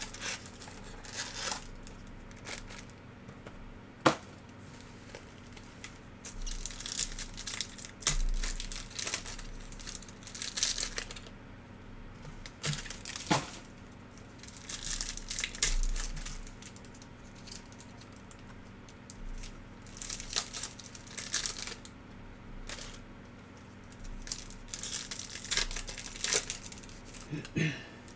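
Bowman's Best trading-card pack wrappers and box wrapping crinkling and tearing as they are handled and opened by hand, in irregular bursts, with a few sharp taps about four, eight and thirteen seconds in.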